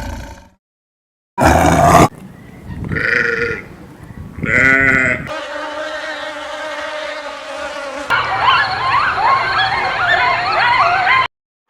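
A succession of different animal calls cut one after another. A short loud grunt comes about a second and a half in, then two brief pitched cries. A steady held call follows, and then many overlapping wavering calls until it cuts off suddenly near the end.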